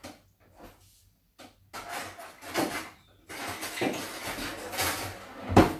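Kitchen drawer being rummaged, metal utensils clattering in irregular spells, with a sharp knock near the end.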